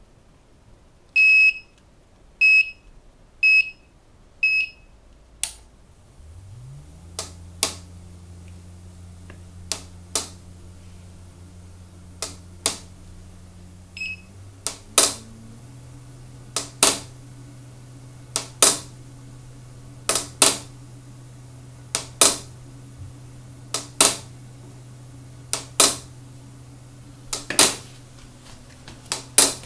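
A PR700 machine beeps four times, then its motor starts and runs with a steady hum that steps up in pitch partway through. Over the hum come sharp knocks or clacks about every two seconds: the abnormal noise it is being recorded for.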